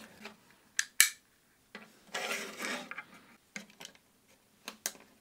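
Small magets and 3D-printed plastic blast-gate parts being handled on a table-saw top: a series of light clicks, the sharpest about a second in, and a short scraping slide between about two and three seconds in.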